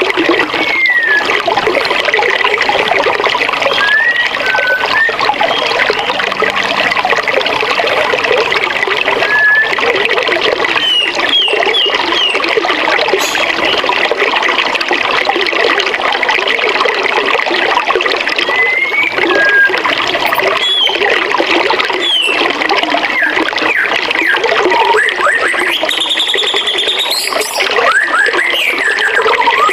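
Forest river flowing steadily, a constant rush of water, with short chirps and whistles from birds scattered over it.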